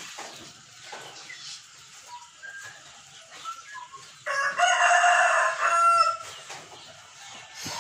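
A rooster crows once, a loud call of about two seconds starting a little over four seconds in.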